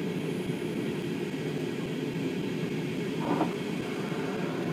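Steady cabin rumble of an Airbus A320 in flight: engine and airflow noise heard through the cabin, with a brief, slightly louder sound a little past the middle.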